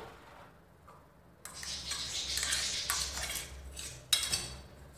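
A metal spoon scrapes thick green chutney paste out of a stainless-steel mixer-grinder jar into a bowl. The scraping starts about a second and a half in, with a sharper, louder scrape just after four seconds.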